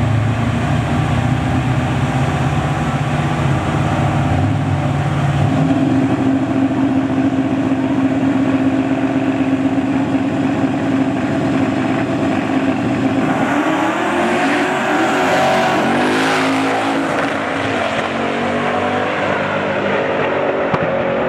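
Two drag-race engines, a twin-turbo LSX V8 Cutlass and a nitrous El Camino, rumbling low at the starting line. About five seconds in they are brought up to a steady held rpm. Near the middle the cars launch, and the engine pitch climbs in repeated rising sweeps as they accelerate hard down the strip.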